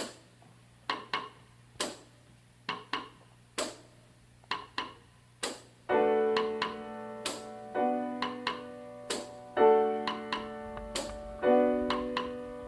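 Piano playing: short, separate struck notes and small note groups about once a second, then from about six seconds in, fuller chords that ring and fade, the stronger ones struck roughly every two seconds.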